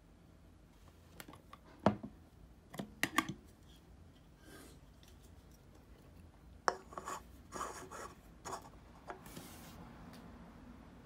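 Beer glass and aluminium beer can handled on a wooden tabletop: a few sharp clicks and knocks, then a burst of clatter as the can is brought to the glass. Near the end comes a short hiss of beer being poured, followed by a faint fizz of the foam.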